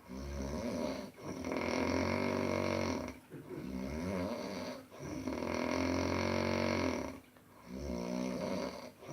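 A sleeping baby snoring, one pitched snore on each breath, about five in a row with short pauses between them. The parent wonders whether enlarged adenoids are the cause.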